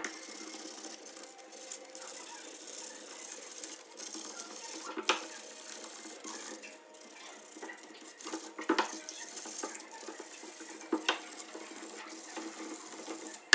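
120-grit sandpaper rubbed by hand over the inside faces of a wooden frame: a steady scratchy rubbing, with a few light knocks scattered through it.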